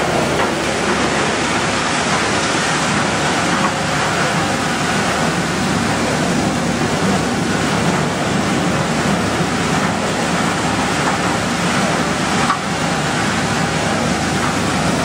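PET bottle recycling line machinery running, a loud steady rushing noise, while shredded PET bottle flakes pour through a chute.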